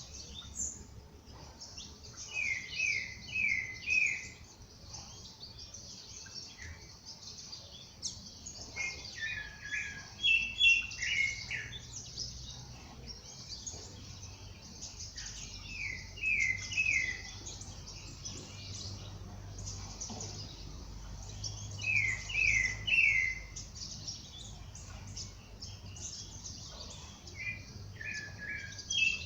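Birds singing in a dawn chorus: a steady mass of high chirps, over which one bird repeats a short phrase of three or four quick notes about every six seconds.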